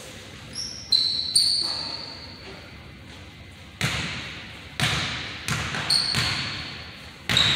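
A basketball is dribbled on a hardwood gym floor, each bounce echoing in the hall, about once a second from about four seconds in. Sneakers give short, sharp squeaks about a second in and again near the end.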